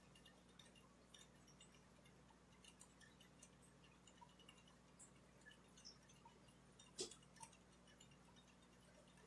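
Near silence: a faint steady low hum with scattered soft clicks from handling a plastic jar of fish-food flakes, two of them slightly louder about seven seconds in.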